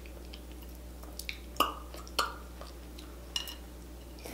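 Close-miked eating sounds: a few short, wet mouth smacks while biting and chewing a sauce-soaked boiled potato. The two loudest come about a second and a half and two seconds in, over a steady low hum.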